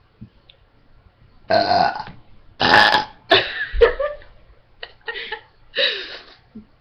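A person burping on purpose several times in a row: about five burps of around half a second each, with short gaps between them.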